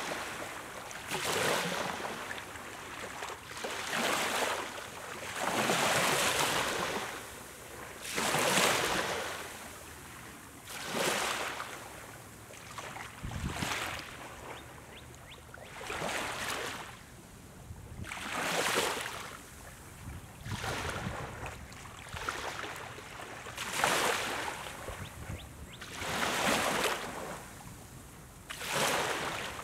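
Small waves lapping onto a sandy beach: a soft rush of surf that swells and fades every two to three seconds as each wave washes up the sand.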